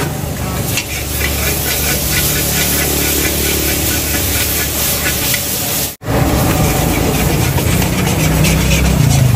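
Mee mamak noodles sizzling in a hot steel wok while a metal spatula scrapes and clanks against the pan as they are stir-fried, over the steady roar of the gas burner. The sound drops out for an instant about six seconds in.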